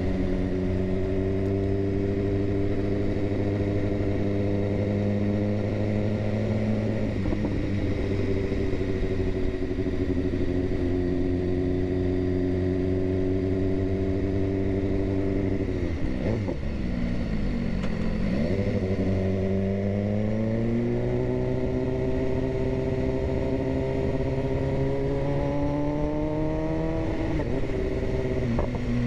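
BMW S1000RR inline-four motorcycle engine under way, held at a steady cruise. About sixteen seconds in the note falls briefly, then climbs steadily as the bike accelerates and drops sharply near the end.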